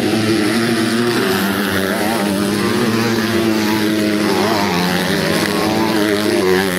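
A pack of fuel-injected 250 cc motocross bikes racing together, several engines running at high revs at once, their pitch wavering about halfway through as the riders work the throttle through the bends.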